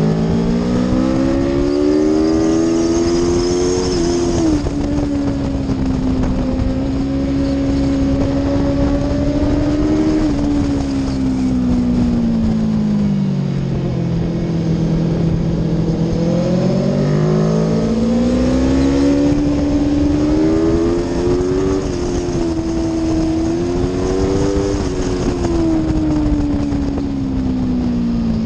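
Aprilia Tuono V4 motorcycle's V4 engine at racing pace on track. The revs climb through the gears with a sharp drop at an upshift about four seconds in, then hold, and fall away as it slows for a corner. They climb again with further shifts and fall once more near the end, over a steady rush of wind noise.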